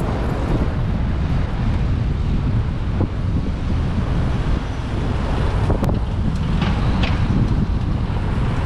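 Wind rumbling steadily on the microphone of a camera carried on a moving fixed-gear bicycle, with a few short ticks.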